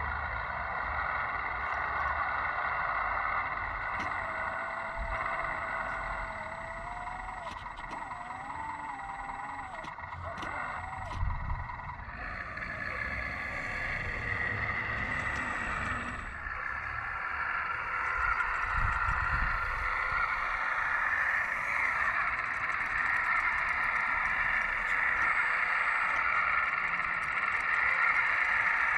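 Electric hydraulic pump and drive motors of a radio-controlled scale CAT loader running with a steady high whine, changing in tone as the machine works, once at about twelve seconds and again a few seconds later.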